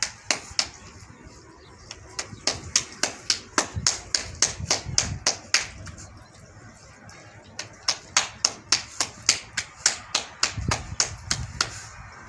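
Hands slapping a ball of roti dough back and forth between the palms to flatten it, at about three slaps a second. The slapping comes in two runs with a short pause in the middle.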